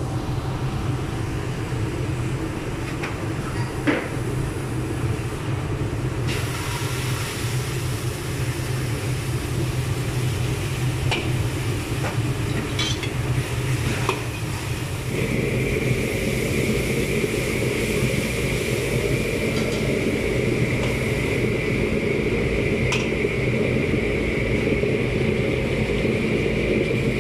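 Sauce and butter sizzling in a steel wok over a roaring gas burner, with a metal ladle clinking against the wok now and then. About halfway through, the noise grows fuller and a steady high whine joins in.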